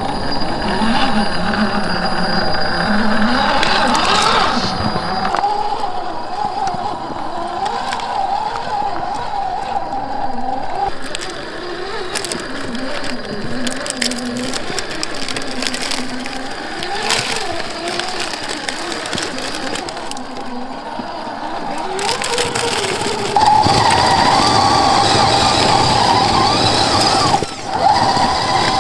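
Scale RC rock crawler's electric motor and gearbox whining, the pitch rising and falling with the throttle, while the tyres crunch and click over loose rock, dirt and dry leaves. The whine gets louder near the end.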